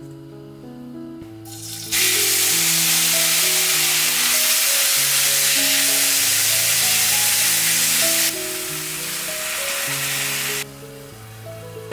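Rehydrated dried Korean vegetables (namul) sizzling loudly as they stir-fry in hot oil in a stainless steel pan. The sizzle starts suddenly about two seconds in, eases somewhat past the halfway point, and cuts off sharply near the end as anchovy stock is poured into the pan.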